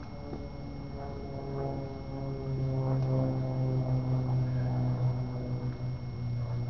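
A low, steady droning hum from an unseen motor, growing louder about a second and a half in.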